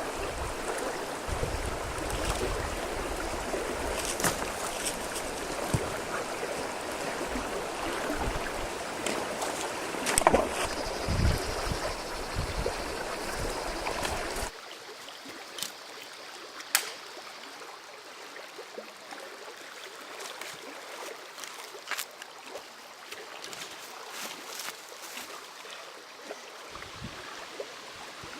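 Rushing river water with scattered sharp knocks and clicks; about halfway through it cuts abruptly to a quieter, thinner rush of water with occasional small clicks.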